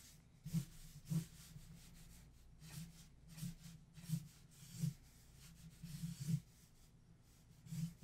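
Felt-tip marker being dragged across paper in a series of quick, uneven strokes while colouring in a drawing, each one a short rubbing squeak.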